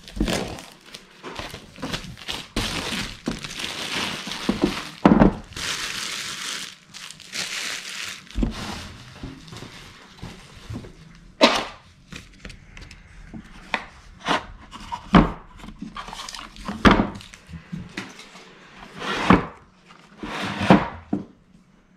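Cellophane wrap crinkling and tearing as it is peeled off a bamboo drawer organizer. This is followed by a series of sharp wooden knocks and thunks as the bamboo organizer is handled on a wooden table.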